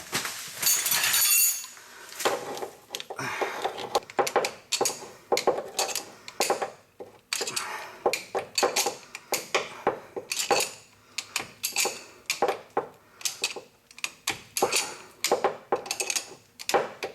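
Hand tools working on steel parts of a truck's parking brake cable tensioner: irregular metallic clinks, clicks and taps, some in quick clusters.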